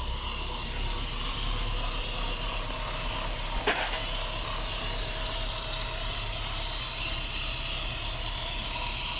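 Freshly rebuilt Opel engine idling steadily, heard as an even hiss with a low hum and faint steady whines, while it runs to let the engine management relearn. A single sharp click sounds a little under four seconds in.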